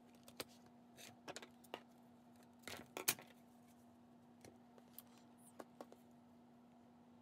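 Soft handling sounds of a small spiral-bound journal and elastic cord: scattered light clicks and taps, with the loudest knock about three seconds in as the journal is laid down on the wooden desk. A faint steady hum runs underneath.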